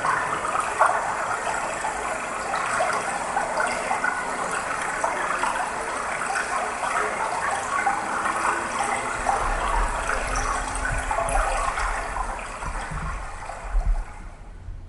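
Rushing, gushing water sound, steady, fading out near the end. A low rumble joins it from about nine seconds in.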